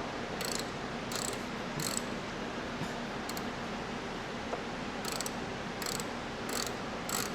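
Hand ratchet clicking in short back-and-forth strokes while bumper bolts are loosened, about eight short bursts of clicking roughly a second apart over steady background noise.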